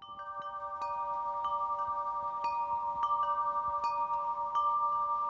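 Chimes ringing: clear metallic notes struck at irregular moments, about every half second, each ringing on so that several tones overlap.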